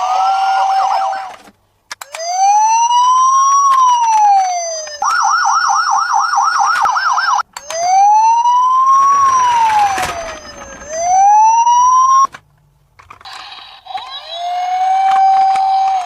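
Toy police car's electronic siren cycling through patterns: a slow wail rising and falling, then a fast yelp, then the slow wail again, with short breaks as the pattern switches.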